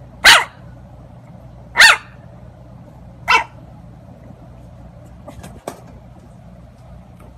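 Puppy barking three times, about a second and a half apart, the third bark weaker.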